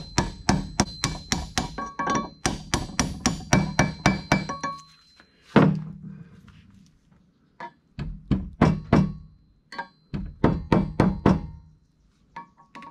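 A hammer striking a steel pipe used as a driver, in quick runs of blows about three or four a second with a metallic ring, seating the brass distributor drive gear down onto a VW Type 1 crankshaft. There is one heavy blow about five and a half seconds in, then another run of blows.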